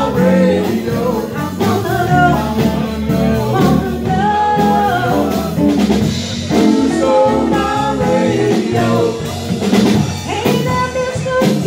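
Live blues band playing: a woman singing over drum kit, bass and electric guitar.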